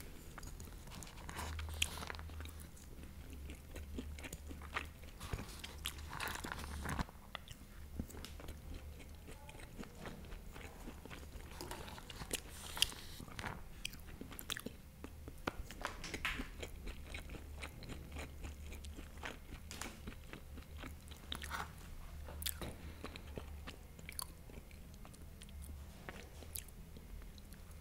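Close-miked chewing and biting of a mouthful of rice, with small crunches and mouth clicks and the odd tap of a fork in a plastic takeaway container. The rice is firm and undercooked, which the eater calls hard and half raw.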